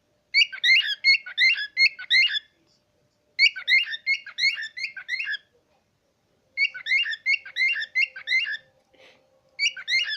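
Pet bird chirping in four quick bouts of short, repeated notes, each bout one to two seconds long with brief pauses between.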